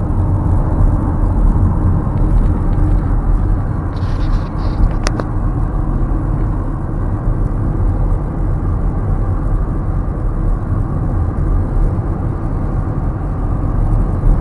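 Car driving at road speed, heard from inside the cabin: a steady low rumble of road and engine noise. A single click comes about five seconds in.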